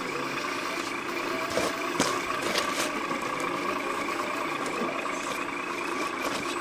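A radio-controlled model vehicle running, with a steady whine and a few light clicks.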